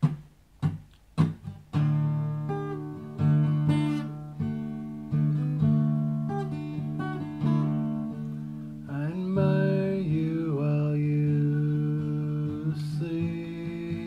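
Acoustic guitar intro: a few short, sharp strokes, then strummed chords left to ring, a new chord struck every couple of seconds. About nine seconds in, a man's voice starts singing over the guitar.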